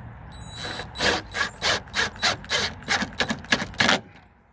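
Ratcheting driver clicking, about four clicks a second for roughly three seconds, as a T25 Torx screw is driven back in to hold the rear tail light assembly.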